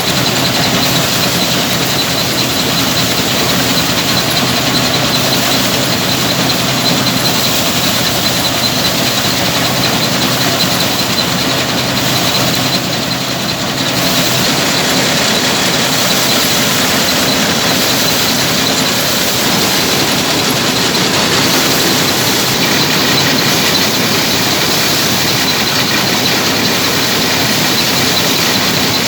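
Paddy thresher running steadily: a loud, dense mechanical clatter with a low hum and a thin, steady high whine, dipping slightly for a moment about halfway through.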